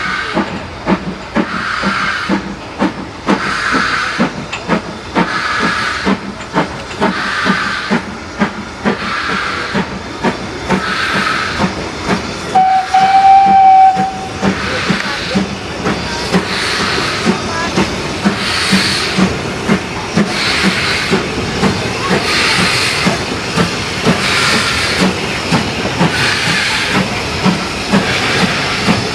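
Two steam locomotives double-heading a train, BR Standard 5MT 4-6-0 No. 73050 and 9F 2-10-0 No. 92212, working past with rhythmic exhaust beats and hissing steam. Near the middle a locomotive whistle sounds one steady note for about a second and a half, the loudest sound here.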